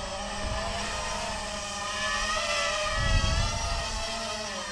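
Brushless motors and propellers of a 250-size FPV racing quadcopter whining as it flies low, the pitch wavering up and down with the throttle. A brief low rumble comes about three seconds in.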